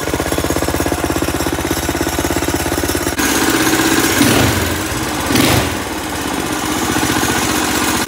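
Predator 212cc single-cylinder engine with a Stage 2 kit running on a small ATV, first with a steady, even firing beat. From about three seconds in it runs louder, its pitch rising and falling as the throttle is worked.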